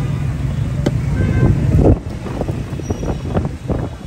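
A low rumble of background noise that drops away abruptly about halfway through, then a few light scattered taps and clinks as a basting brush is dipped into a steel pot of masala and dabbed onto fish on a wire grill.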